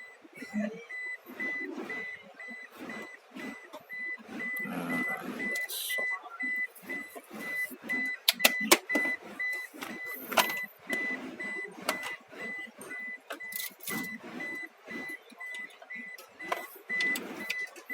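A car's electronic warning chime beeps steadily, about two to three beeps a second. Over it come irregular clicks, taps and knocks of a hex key and hands working on the steering wheel's plastic trim, with a few sharp clicks about halfway through.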